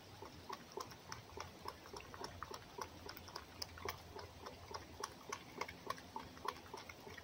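Red fox eating: faint, quick, irregular small mouth clicks, several a second, as it chews and laps its food.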